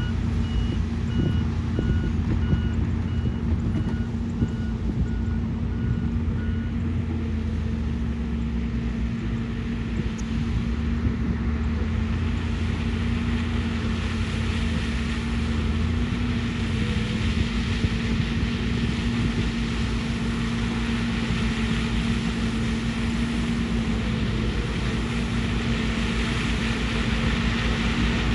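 Heavy earthmoving machine's diesel engine running steadily, with its reversing alarm beeping at an even pace until about six seconds in. A hiss of grinding and clatter grows from about twelve seconds on.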